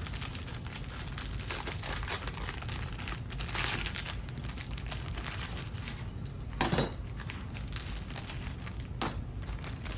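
Packaging crinkling and rustling as the hinges are unwrapped, with a louder brief burst of noise about two-thirds of the way in.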